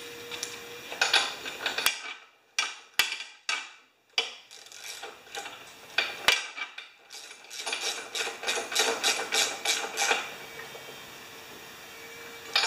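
Ratchet wrench clicking as it runs a spark plug into a lawn mower engine: a few short runs of clicks with pauses, then a longer, quicker run of clicks that stops about two seconds before the end.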